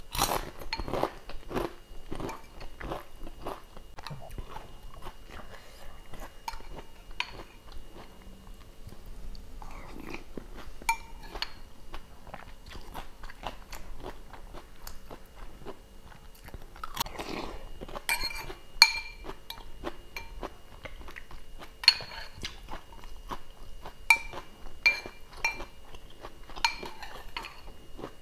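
Close-up crunching and chewing of crisp crackers. In the second half, several sharp ringing clinks, typical of a metal spoon knocking against a ceramic bowl.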